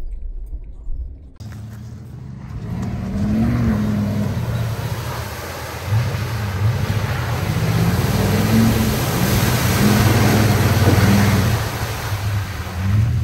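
Off-road vehicle's engine revving under load, its pitch rising and falling, with a loud rushing spray of wheels churning through mud. It starts abruptly about a second in and builds louder toward the end.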